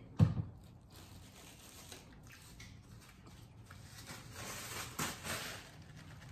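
A single thump just after the start, then a paper napkin being handled, shaken open and rustled, loudest about four to five seconds in.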